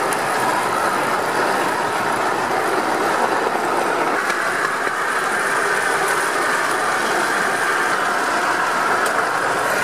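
Steady rolling noise of a small handmade rail trolley's wheels running along a railway track.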